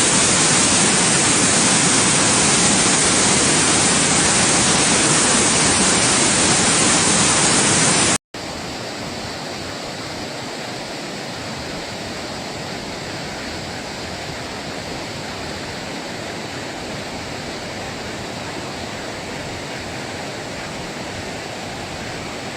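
Waterfall rushing steadily. About eight seconds in it cuts off for a moment and gives way to quieter, steady rushing water.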